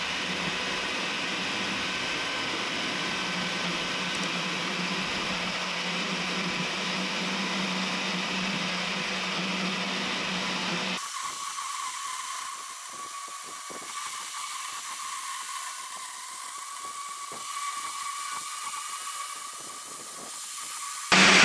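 Festool Univers SSU 200 EB electric chain saw running steadily on its guide rail while cutting through an oak purlin. About halfway through, the sound abruptly turns thinner, losing its low end.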